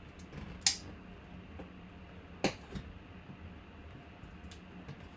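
Plastic wrapping on a baseball bat being picked at with fingers and a folding knife. There are two sharp clicks about two seconds apart, with fainter ticks between them.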